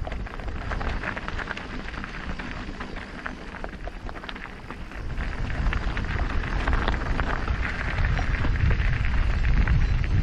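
Mountain bike tyres rolling over a gravelly, stony trail: a steady crunch full of small stone clicks and rattles. A low rumble grows louder about five seconds in.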